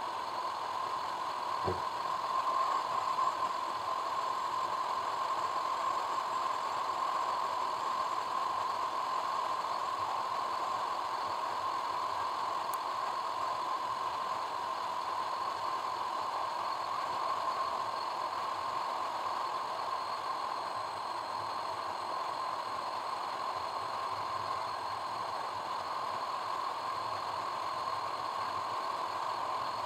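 A car driving: a steady hum of road and engine noise, with one brief low thump about two seconds in.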